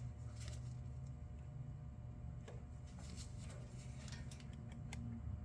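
Faint, scattered metal clicks from a screwdriver worked against a stuck oil filter, over a steady low hum.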